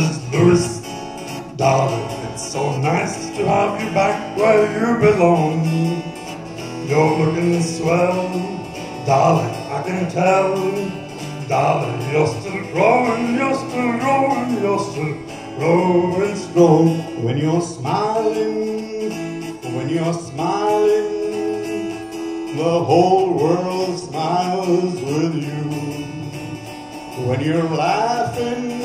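Acoustic guitar played live in a smooth jazz medley, with a man singing along at times.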